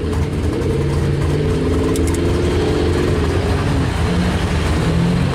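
Truck engine running under light throttle, heard from inside the cab while rolling slowly along a dirt road, its note wavering up and down a little.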